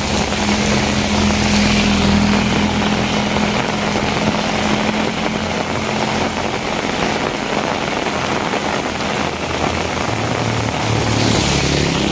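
Steady rain falling with a motor vehicle's engine running close by; its hum fades after a few seconds, and another engine comes in near the end.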